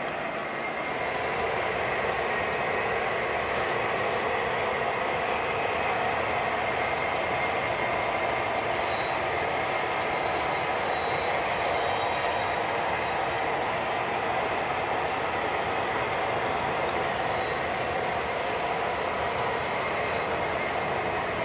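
O gauge model freight train pulled by four MTH Premier diesel locomotives running steadily on the layout: a continuous rumble of wheels on the three-rail track with motor hum.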